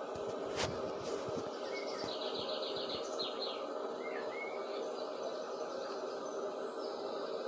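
Small birds chirping: a quick trill of rapid notes about two seconds in and a few short rising chirps, over a steady background hiss. A single sharp click about half a second in.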